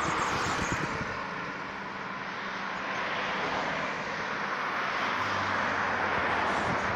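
Road traffic passing close by: steady engine and tyre noise as a van and then a small car drive past, swelling and easing gently.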